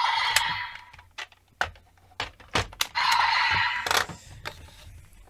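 Plastic clicks and knocks of a Kamen Rider toy transformation belt and raise buckle being handled, with a short burst of electronic sound effect from the belt's speaker about three seconds in.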